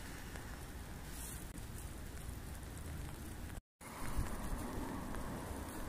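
Wind buffeting the microphone outdoors, a steady rumbling hiss that drops out for a moment about two-thirds of the way through.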